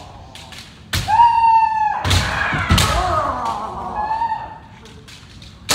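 Kendo sparring: about a second in, a sharp strike impact followed by a long, high kiai shout held for about a second. More strikes and shouts follow, with a shorter shout near four seconds.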